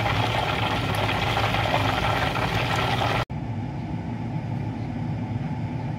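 Hot frying oil sizzling in a pot under a steady low hum; about three seconds in, the sizzle cuts off abruptly, leaving a quieter hum.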